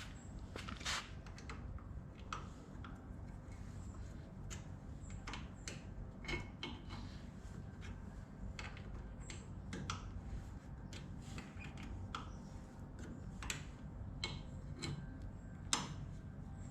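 Irregular light metal clicks and ticks of an Allen key turning a new grub screw into a VW Beetle torsion arm, over a low steady hum.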